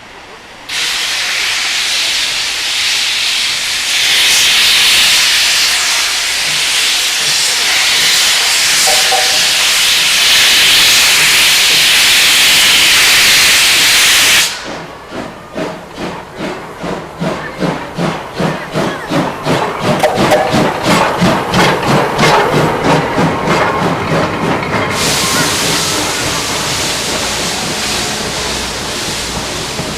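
SL Hitoyoshi's 8620-class steam locomotive pulling out of a station: a loud, steady blast of steam hiss for about fourteen seconds, then exhaust chuffs that start about halfway through and come faster as the train gathers speed, with the hiss rising again near the end.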